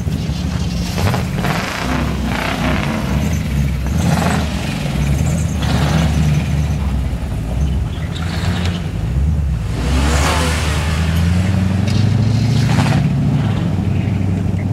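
Engines of off-road 4x4s (Jeeps and lifted trucks) running and revving on dirt, with the engine sound getting louder and climbing a little in pitch about two-thirds of the way in. Several short rushes of noise come and go over the engines.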